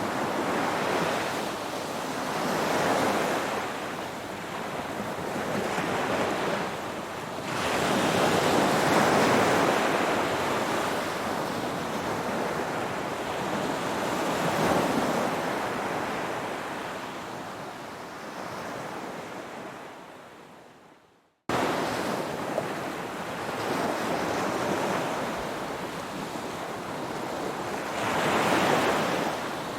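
Ocean waves breaking in repeated swells, each surge rising and easing over a few seconds. About two-thirds of the way through the sound fades out to a moment of silence and then cuts straight back in.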